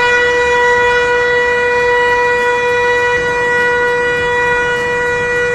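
A vehicle horn held down in one long, steady blast at a single unchanging pitch, over traffic noise.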